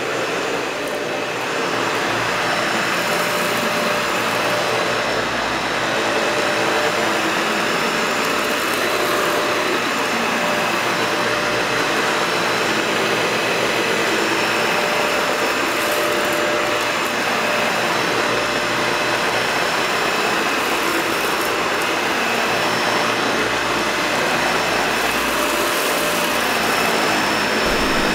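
Dyson Ball Animal upright vacuum cleaner running steadily: a rush of air with a steady whine over it, swelling a little now and then.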